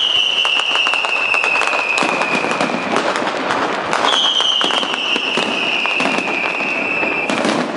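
Fireworks display: dense crackling and popping of bursting shells, with a high whistle that slides slightly downward for about three seconds, heard twice.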